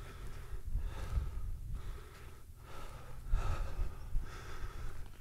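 A hiker breathing hard and panting after a steep climb, about one breath a second, over a low rumble of wind on the microphone.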